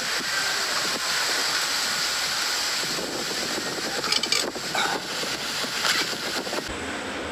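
A man burping in short bursts, about four and five seconds in and again near six seconds, over a steady hiss.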